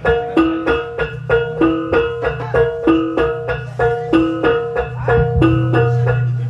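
Tuned percussion playing a short repeating melodic figure, about three notes a second cycling through a few pitches, with a low steady tone sounding underneath twice.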